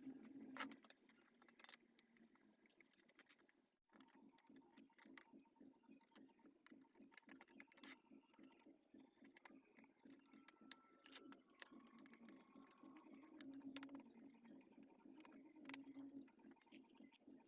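Near silence with faint scattered clicks and light handling noise, as the equalizer's case is screwed back together, over a faint low hum.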